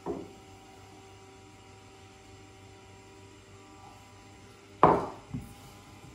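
Kitchen utensils and containers knocking while batter is mixed by hand at a wooden worktop: a soft knock at the start, a loud knock about five seconds in, and a smaller one just after it. A faint steady hum runs underneath.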